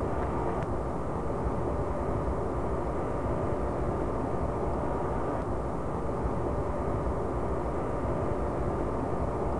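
Steady even drone with a faint hum through it, unchanging and without any rhythm or sudden sound.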